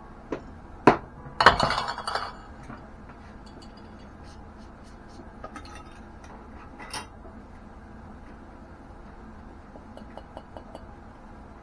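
Glass curing jars clinking as they are handled to burp the cure. A sharp clink comes about a second in, then a short clattering rattle, then scattered light taps.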